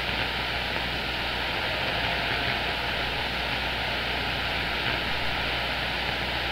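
Steady hiss of band noise from a CB radio receiver with the squelch open on the 11-metre band between transmissions, with a low hum underneath.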